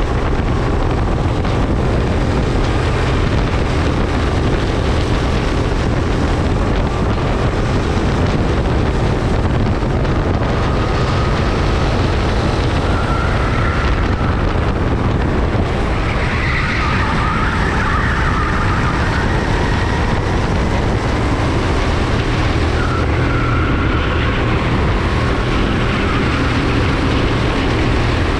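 Go-kart engine running at racing speed under heavy wind buffeting on the microphone, the engine pitch rising and falling with the throttle through corners, with other karts running close behind.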